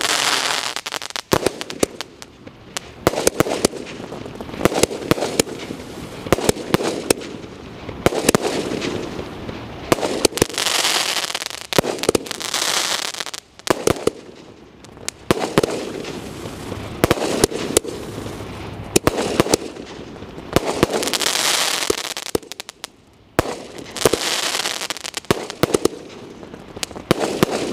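A 30-shot aerial firework cake firing its shots one after another, each launch a sharp report followed by the shell bursting. Longer stretches of crackling come about ten seconds apart.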